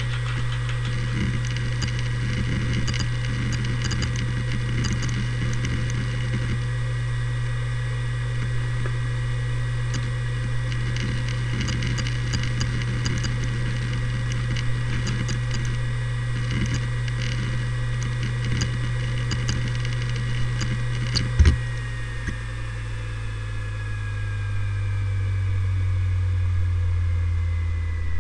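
Seagate Barracuda ES ST3250820NS 7200 rpm hard drive spinning with a steady hum and high whine, its heads seeking with irregular clicks. About 21 seconds in there is one loud click, then the hum and whine slide slowly down in pitch as the drive spins down at shutdown.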